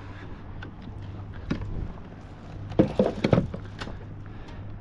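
A cluster of sharp knocks and thumps, loudest about three seconds in, over a steady low hum.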